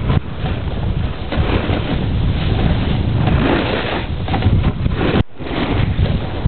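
Wind buffeting the microphone during a snowboard run, mixed with the hiss and scrape of the board sliding over snow. The noise drops out briefly about five seconds in, then resumes.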